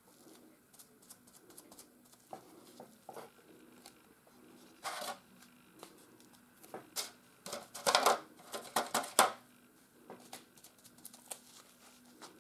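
Foam sponge dabbing paint on a paper palette and the edge of a wooden coaster: soft scattered taps and rustles, with a louder run of quick taps about eight to nine seconds in. A faint steady low hum underneath.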